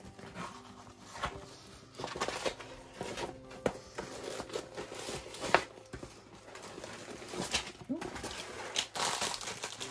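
Plastic-covered diamond painting canvas crinkling and rustling as it is unrolled and handled. The sound comes in irregular bursts, with a sharp crackle about five and a half seconds in and a longer loud rustle near the end.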